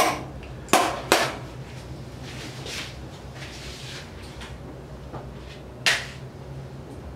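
Surgical instruments and equipment handled on a stainless steel surgery table: sharp clicks and knocks, three within the first second or so and one about six seconds in, over a steady low hum, with a soft hiss in between.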